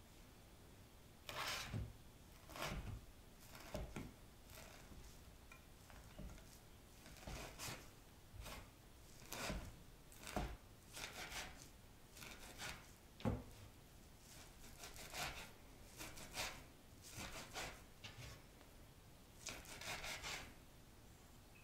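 Chef's knife chopping blanched wild greens on a wooden cutting board: unhurried, uneven knocks of the blade on the board, each with a short scrape, starting about a second in.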